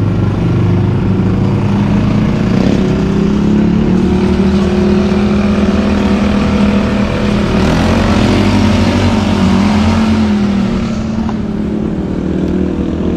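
A vehicle engine running steadily while driving, its pitch wavering slightly up and down, with road and wind noise.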